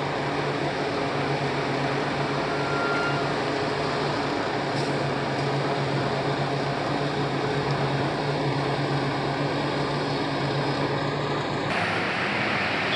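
Coach USA motorcoach's diesel engine idling with a steady low hum. Near the end it gives way suddenly to an even hiss of rain and traffic on the wet street.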